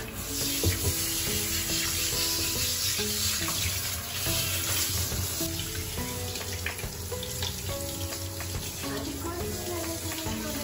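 Water spraying steadily from a handheld amane shower head onto a wet puppy's coat and the hand holding it, with light background music.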